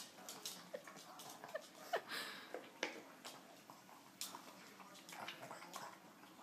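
A pug eating dry kibble off a carpet: faint, irregular crunches and clicks with short snuffles through the nose.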